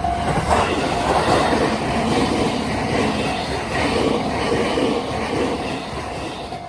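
E653 series electric multiple unit passing over a level crossing: a rush of wheel-on-rail noise that swells about half a second in and eases off near the end. It drowns out the crossing bell's ringing.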